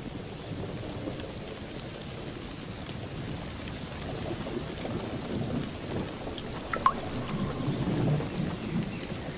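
Rain falling on grass in a thunderstorm, with a low rolling rumble of thunder that swells in the second half. A few sharp drop hits stand out about seven seconds in.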